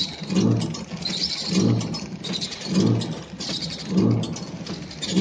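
Bag packing machine running, with a regular cycle: a low pulsing hum and hiss that repeats about every second and a quarter, four times, as the machine seals and cuts each bag.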